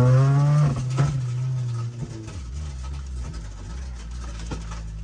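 Honda Civic EG hatchback's four-cylinder engine pulling with revs climbing, then dropping away about a second in and settling to a lower, quieter steady drone from about two seconds in.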